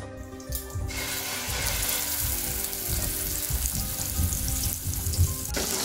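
Ground-meat loaf sizzling as it sears in hot oil in a stainless steel skillet. The sizzle sets in about a second in and then holds steady, over soft background music.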